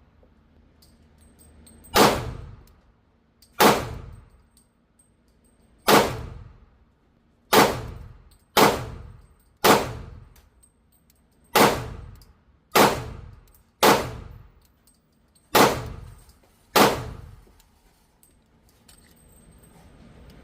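Sig Sauer P229R pistol fired eleven times at a slow, uneven pace, each shot a sharp crack with a ringing, echoing tail.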